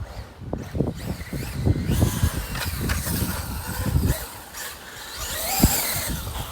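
Traxxas UDR 1/6-scale RC desert truck's electric motor revving and drivetrain noise as it is driven hard on a 6S battery. The sound rises and falls unevenly, with a sharp knock about five and a half seconds in.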